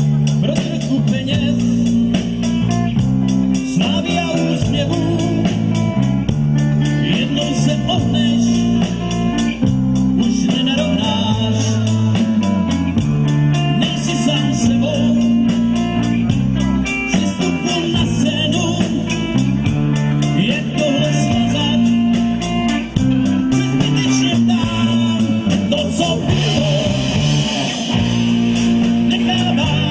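Rock band playing live through a PA: electric guitars and a drum kit, with steady cymbal strokes keeping the beat.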